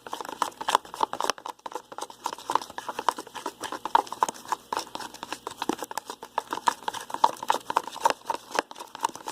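Plastic spoon stirring a foamy mix of glue, shaving cream and lotion in a bowl, making a continuous run of quick, irregular clicks.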